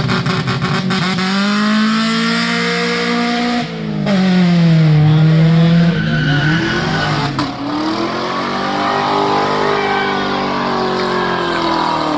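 Car engine revved hard and held high in long swells, dropping off briefly about four and seven seconds in, with tyres squealing under wheelspin: a burnout.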